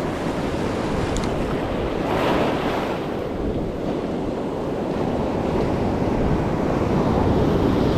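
Ocean surf breaking and washing up the beach, swelling louder about two seconds in and again near the end, with wind buffeting the microphone. A brief high tick sounds about a second in.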